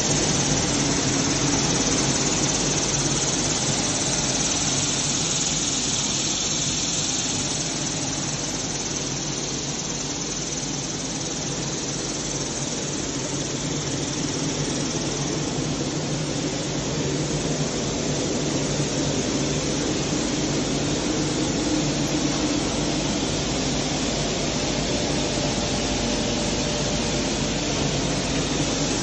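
Fingerless oblique-type single-facer corrugation machine running, a steady mechanical hum under a continuous hiss, without break.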